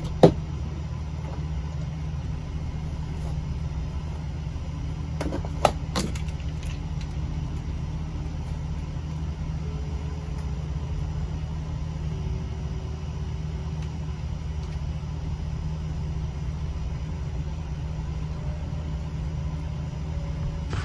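A steady low hum or rumble, with a few sharp clicks just after the start and again about six seconds in.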